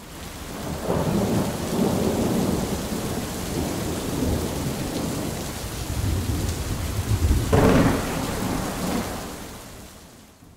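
Thunderstorm: steady rain hiss under low rumbles of thunder, with a sharper thunderclap about seven and a half seconds in, fading out near the end.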